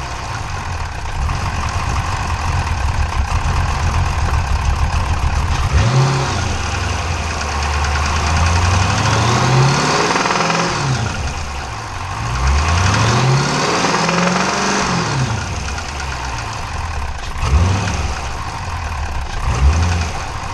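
392 Hemi V8 engine revved up and back down several times between stretches of idle, with a knock that makes it sound like a Cummins diesel: an engine knock at only 1400 miles.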